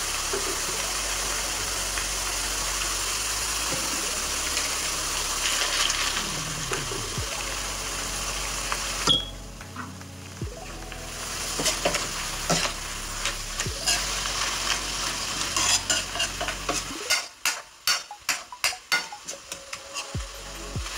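Chopped red chilies and garlic sizzling in hot oil in a metal wok. About nine seconds in there is a sharp clatter and the sizzle drops for a moment; then a metal spoon stirs dried anchovies into the chili oil, clinking and scraping against the wok, with a quick run of clinks near the end.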